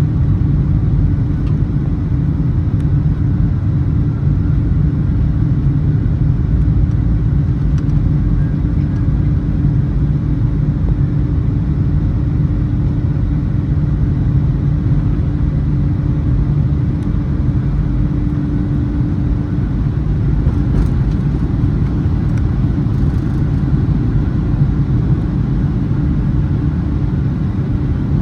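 Boeing 757-300 jet engines making a steady, heavy low rumble, with a faint steady hum in it that fades out about two-thirds of the way through.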